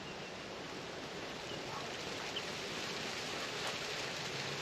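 Steady hiss of falling water, slowly growing louder, with a few faint ticks.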